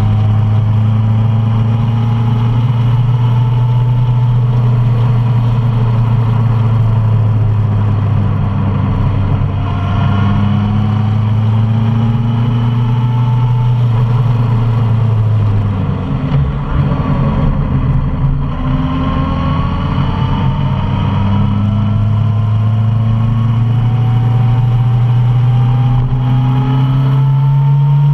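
Suzuki Bandit 650 motorcycle's inline-four engine running on the road under a steady low rumble, its note rising several times as the bike accelerates. The sound dips and breaks up briefly about two-thirds of the way through.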